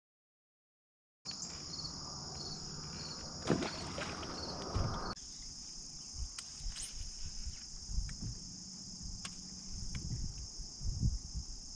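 After about a second of silence, a steady high-pitched chorus of insects runs on, with scattered light knocks and low handling rumbles on the boat.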